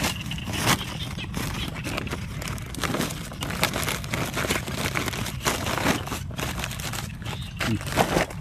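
Irregular crinkling and rustling, with many sharp crackles scattered through, over a steady low hum.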